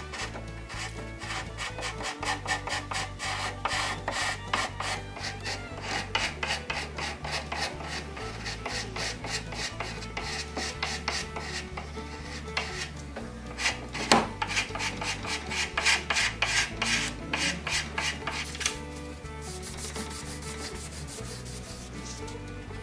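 A small hand-held steel scraper scraping across pine boards in rapid short strokes, shaving off old finish so the oil stain will take evenly.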